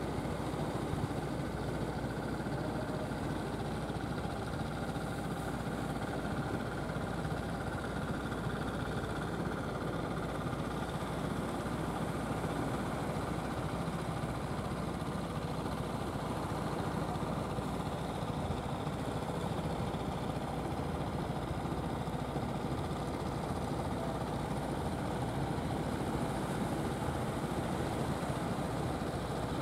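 Engine of a motorised wooden fishing boat running steadily as the boat cruises past under power, a low even hum.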